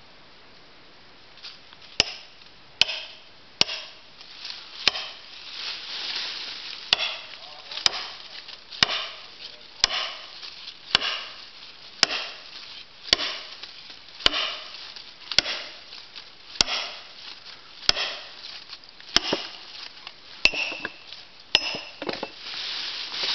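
Steady hammer blows, about one a second, driving steel splitting wedges into a red spruce log to split it. Each strike is a sharp knock with a short ring after it, and the blows start about two seconds in.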